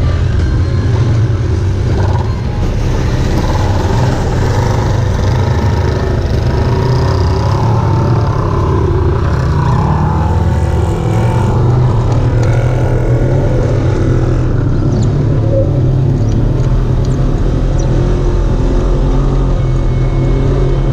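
Off-road vehicle engine running steadily and loud.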